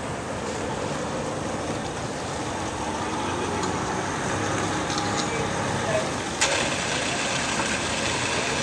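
An engine running steadily under a background of voices, with one sharp knock about six and a half seconds in.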